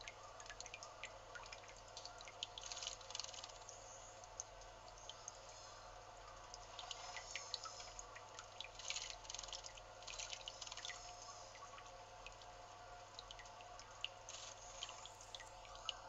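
Water trickling and dripping in a stone bird bath, with short bursts of splashing as a male narcissus flycatcher bathes, flicking its wings in the water. The splashing comes several times in the first two thirds; after that, only the drips and trickle remain.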